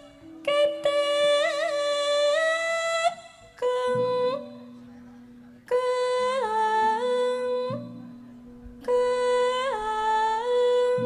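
A Javanese sinden (female gamelan singer) singing a solo vocal line in four ornamented, wavering phrases with short breaths between them. Low held instrument notes sound underneath, with a new one entering about a third of the way in and again about two-thirds through.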